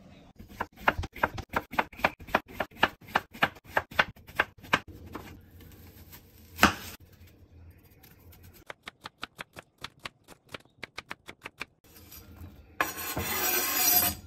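Kitchen knife slicing cucumber and onion on a cutting board in two quick runs of strokes, about four to five a second, with one heavier knock between them. Near the end, a short rush as the sliced onion is scraped off the board into a bowl.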